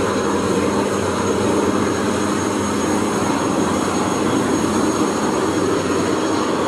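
Cessna Grand Caravan's single turboprop engine running steadily, with a thin high whine over its roar, as the plane rolls along the runway.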